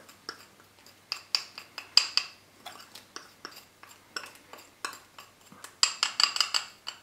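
A utensil clinks and scrapes against a glass bowl in irregular short knocks as thick icing is scraped out into a plastic zip-top bag. The clicks bunch together about two seconds in and again near the end.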